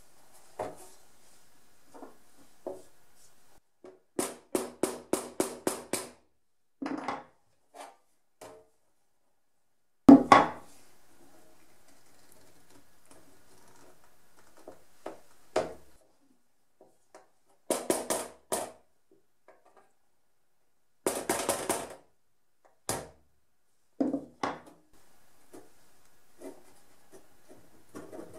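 Groups of quick, sharp taps on metal and wood: a small mallet striking a punch to knock the brass saw screws out of an old hand saw's wooden handle, several taps a second. A single louder knock comes about ten seconds in, and the groups are separated by abrupt silences.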